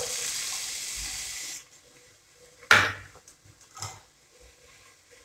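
Finely chopped onion dropped into hot oil in a pot, sizzling with a steady hiss that cuts off suddenly about a second and a half in. A loud knock of kitchenware near three seconds in, then a lighter one about a second later.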